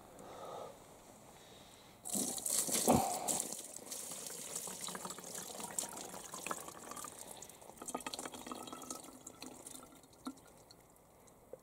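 A plastic bottle held under the water in a rain barrel, filling with rainwater: a splash about two seconds in, then water running into the bottle for several seconds before it fades.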